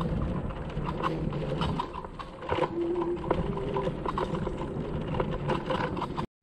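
Kugoo Max Speed Pro electric scooter ridden over rough ground: a stream of irregular knocks and rattles over a low rumble, with short squeaks about halfway through. These are the chassis rattles and squeaks the scooter is known for.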